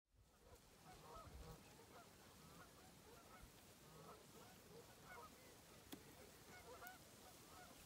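Faint chorus of many geese honking in the distance, short overlapping calls without a break, fading in at the start. Two faint clicks come in the second half.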